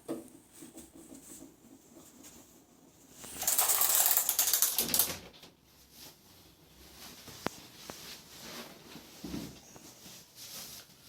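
Rustling and a quick run of crackling clicks from the patient's body and clothes moving on the treatment table during a chiropractic back adjustment. The sound is loudest for about a second and a half a few seconds in, and a single sharp tick follows later.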